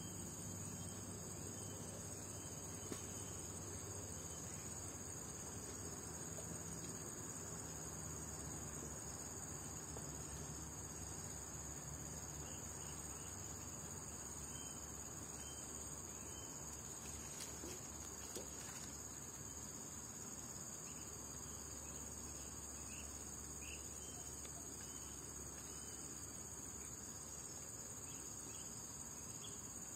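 Steady, high-pitched drone of an insect chorus that runs on without a break.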